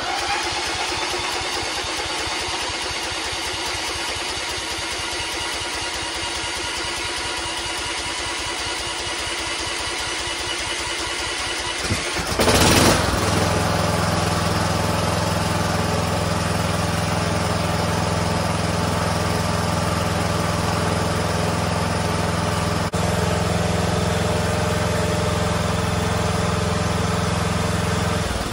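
Kohler 19-horsepower, 597 cc lawn mower engine on its first start after an engine swap. It runs continuously, gives a short louder burst about twelve seconds in, then settles into a steady, even running note.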